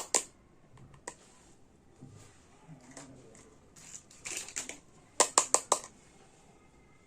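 Small plastic miniature toy kitchen pieces clicking and tapping as they are handled, with a quick run of four sharp clicks about five seconds in.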